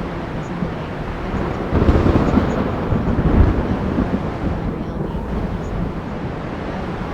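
Thunderstorm: steady rain and wind noise, with a low roll of thunder swelling about two seconds in and dying away over the next few seconds.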